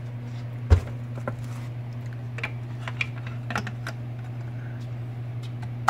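Handling of a pond pump motor: a loud thump about a second in as the pump is set down upright on the workbench, then scattered light clicks and taps as the plastic fan cover is fitted onto the motor. A steady low hum runs underneath.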